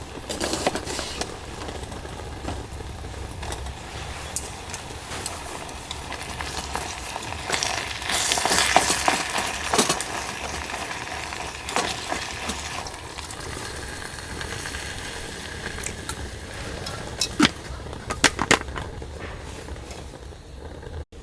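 A sizzling hiss with scattered clinks and knocks. It grows loudest about eight to ten seconds in.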